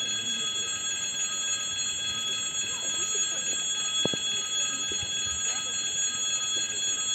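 Railway crossing warning signal sounding continuously with a steady high ringing, which signals an approaching train. Faint voices of people nearby.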